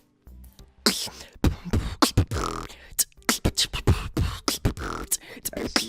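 Human beatboxing: mouth-made kick and snare hits in a fast rhythm with some pitched vocal sounds mixed in, starting about a second in after a short pause.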